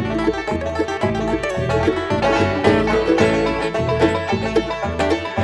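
Acoustic bluegrass band playing an instrumental at a driving tempo: quick picked string notes over a steady bass line on the beat.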